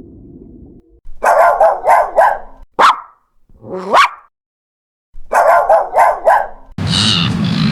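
A dog barking in quick runs of four, with a sharp rising yelp and a rising whine between the two runs. Near the end a steady loud noise cuts in abruptly.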